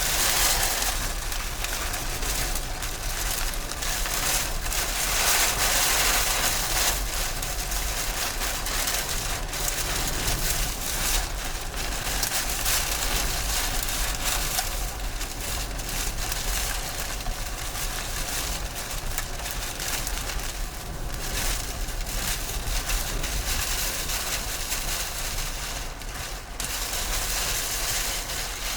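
Heavy rain and storm wind, a steady loud rushing hiss with fine pattering and a constant low rumble underneath.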